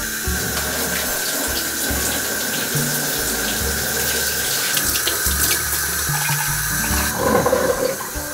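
Kitchen tap running steadily into a sink as fresh mint leaves are rinsed under the stream.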